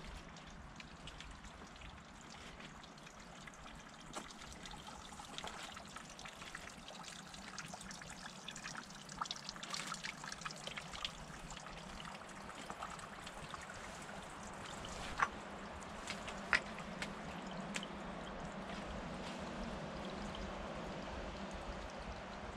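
A thin trickle of water running over stones in a shallow creek, growing a little louder toward the end. Scattered small clicks and knocks sound over it, with two sharper knocks past the middle.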